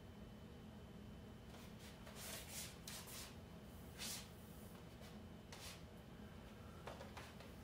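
Near silence: room tone with about half a dozen faint, short rustling and scraping sounds of someone moving about.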